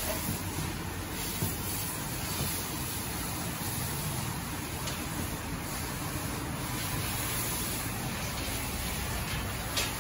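Steady hiss of water spraying from a self-serve dog-wash hose onto a wet dog's coat and the stainless-steel tub, with a brief tap near the end.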